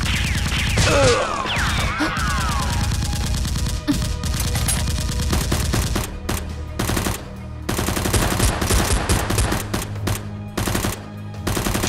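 Rapid bursts of automatic gunfire sound effects over a steady music bed, with whistling pitch glides sweeping down and up in the first couple of seconds.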